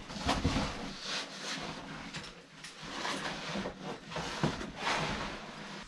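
Irregular scuffing and scraping of a caving suit, boots and clipped-on gear against rock as a caver squeezes through a narrow meander passage, with a few soft knocks.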